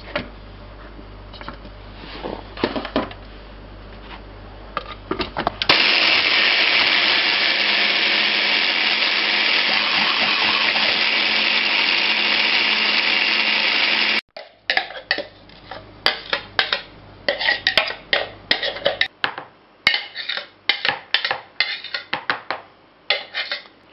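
Hand blender with a chopper bowl attachment running steadily for about eight seconds, puréeing onion to a mush, then cutting off sharply. It is preceded by a few light knocks as the chopper is set up, and followed by a run of quick clicks and taps as the onion is scraped out of the bowl.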